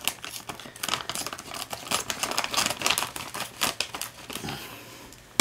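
Thin clear plastic bag crinkling as it is handled and cut with scissors: a run of quick, irregular crackles and snips that thins out near the end.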